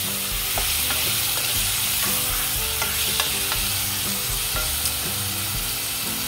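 Marinated pork cubes frying in a nonstick pot, a steady sizzle, while a wooden spatula stirs them with scattered light scrapes and taps against the pan.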